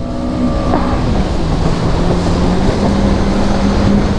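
Jet ski engine running at speed, with a steady engine note under rushing water spray and wind. The pitch dips slightly about a second in and comes back up.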